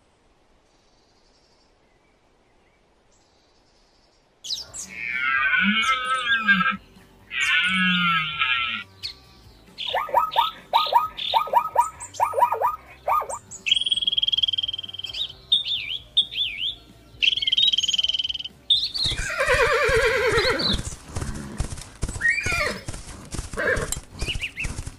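About four seconds of near silence, then a string of different animal calls: two long wavering calls, a quick run of short calls, a steady high whistling call with short chirps, and a noisier burst of calls near the end.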